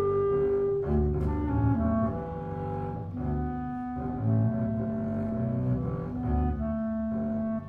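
Double bass played with the bow in long, sustained low notes, with a clarinet playing held notes above it: a clarinet and double bass duet.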